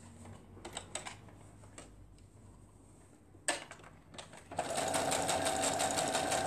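A few faint clicks as fabric is positioned under the presser foot. About four and a half seconds in, an electric sewing machine starts and runs steadily, stitching a seam through patchwork with a quick, even rhythm.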